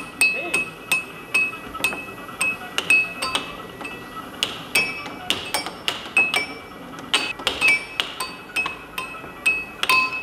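Air hockey puck clacking against the plastic mallets and the table's rails in a fast rally: sharp, irregular clicks, about two or three a second, each with a brief ringing.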